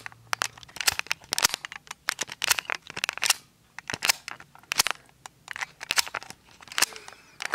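Handling noise from the camera being grabbed and moved about: a rapid, irregular run of crackling, rustling clicks against the microphone, with a brief lull about three and a half seconds in.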